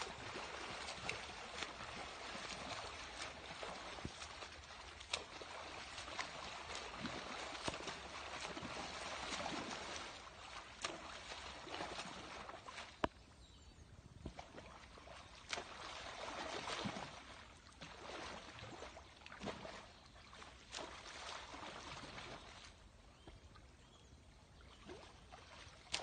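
River water splashing and swirling, swelling and fading every few seconds, with scattered small knocks and clicks.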